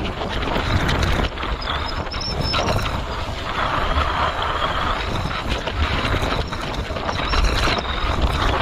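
Motorcycle ride with heavy wind buffeting the microphone over the engine's low rumble, steady throughout, with a faint high whine in the middle.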